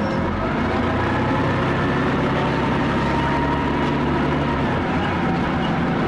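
Leyland L10 straight-six diesel engine of a double-decker bus running steadily; the deepest part of its note drops away about three-quarters of the way through.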